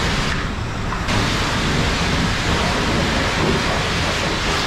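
Self-serve car wash pressure wand spraying water onto a pickup truck's wheel and body: a steady, loud hiss of high-pressure spray. The hiss thins briefly about half a second in.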